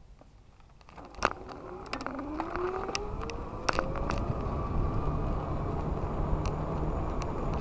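Heybike Mars electric bike pulling away: the hub motor's whine rises steadily in pitch as it speeds up, over building wind and tyre noise, with a few sharp clicks and rattles from the bike.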